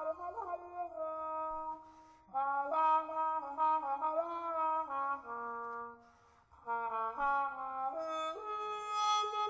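Free-improvised jazz: wind instruments hold long notes that step up and down in pitch, breaking off twice for a moment.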